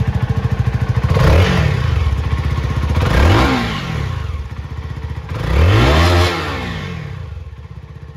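CF Moto NK 300 single-cylinder 300cc engine idling, then blipped with the throttle three times. Each rev rises in pitch and falls back to idle.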